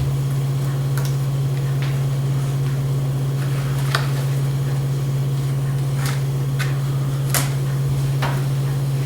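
A steady low hum throughout, with light scattered clicks and taps, about seven of them, as the laptop display's tiny wires are pressed back into their plastic clips.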